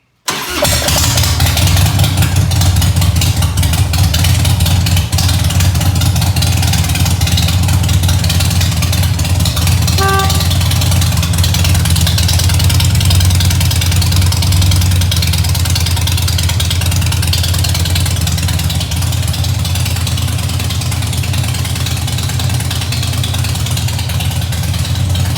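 Motorcycle engine running steadily at idle, with a short pitched tone about ten seconds in.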